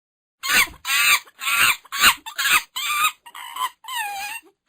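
Monkey giving a rapid series of loud, harsh pitched calls, about two a second, starting about half a second in.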